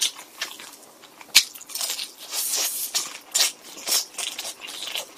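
Crunchy biting and chewing of a piece of sauce-dipped boneless fried chicken, with one sharp loud crunch about a second and a half in and a thick run of crunching chews after it.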